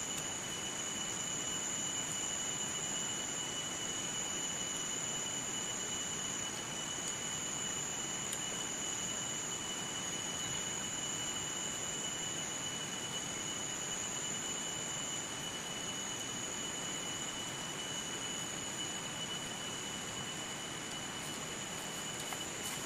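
Steady jungle ambience: an even hiss of background noise with a constant high-pitched drone of insects.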